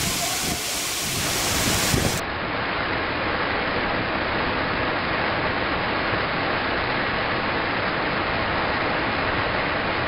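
A tall waterfall's water falls and sprays down a rock face, making a steady rush like heavy rain. About two seconds in, the sound changes abruptly to the same rush without its highest hiss.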